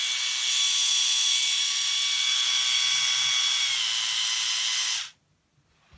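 A small electric motor buzzing at a steady high pitch. It dips slightly in pitch about four seconds in and cuts off suddenly about five seconds in.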